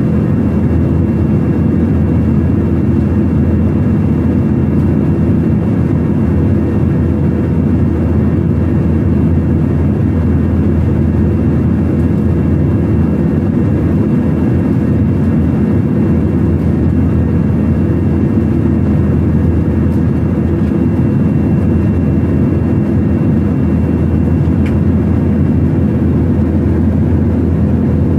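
Steady cabin noise of a jet airliner in cruise, heard from a window seat beside the underwing turbofan engine: an even low rumble and rush of air with a faint high steady tone above it.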